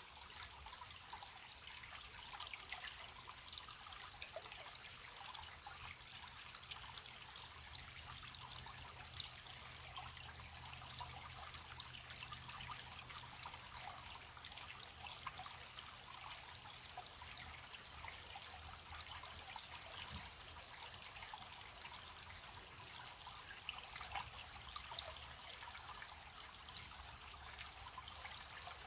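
Gentle stream trickling and babbling over stones, with crickets chirping in a steady, even pulse.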